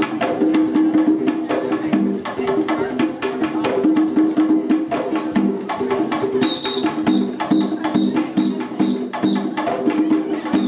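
East African drum ensemble playing a fast, steady rhythm, with a run of short, high, evenly repeated tones over it in the second half.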